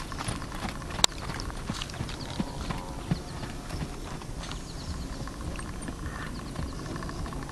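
Hoofbeats of a Welsh Cob trotting on sand footing, a series of dull irregular thuds that grow fainter as the horse moves away across the arena. A single sharp click about a second in stands out above them.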